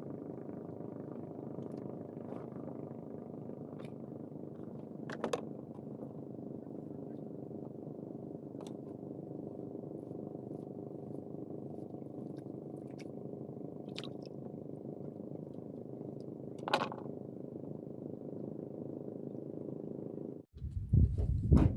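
A small engine running steadily, with a few faint clicks over it. It cuts off suddenly near the end, followed by a few loud knocks.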